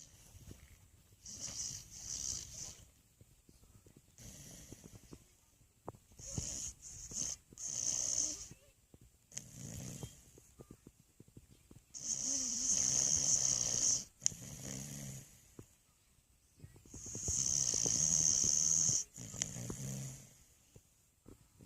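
Dog snoring: a run of short, quieter snoring breaths, then two long, louder snores about halfway through and near the end, each a low pitched drone over a hiss.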